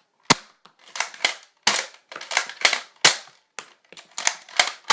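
Nerf Strongarm six-dart revolver blaster being primed and fired repeatedly: sharp plastic clacks and snaps, a strong one about every one and a half seconds with smaller clicks in between.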